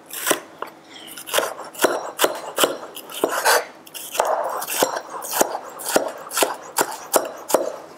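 Chef's knife slicing a yellow bell pepper into strips on a cutting board: a steady run of blade knocks on the board, about two a second.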